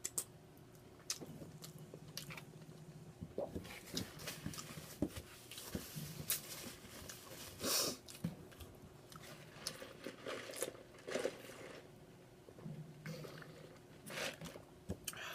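A person chewing and biting into crispy fried fast food, with many short crunching clicks throughout.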